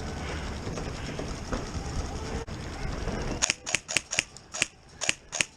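A steady low rumble, then about three and a half seconds in an airsoft gun fires a quick, uneven string of about ten sharp shots.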